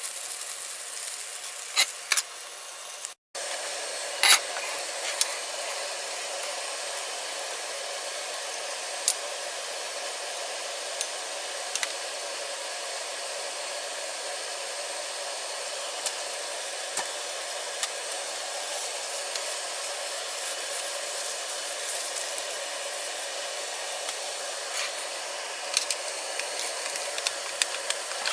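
Steady hiss of cooking on the stove, with scattered light clicks. There is a brief break about three seconds in.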